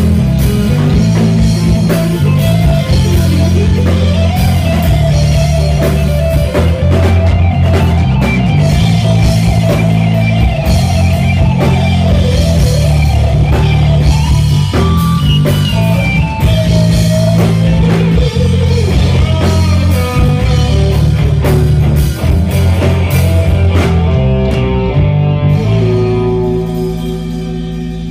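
Live rock band playing an instrumental passage: electric guitar lead lines over a drum kit beat and deep bass notes. Near the end the drums stop and a final chord is left ringing and fading.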